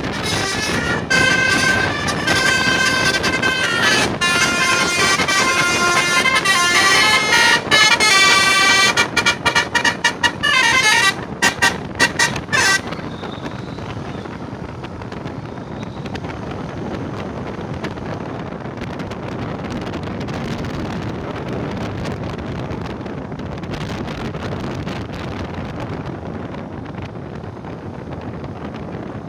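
A tour bus's telolet basuri musical horn playing a melody of held, stepping notes, breaking into a run of quick short toots before cutting off about thirteen seconds in. After that only a steady noise remains.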